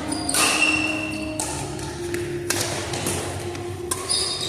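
Racket hits in a doubles rally: several sharp strikes about a second apart, ringing in a large hall.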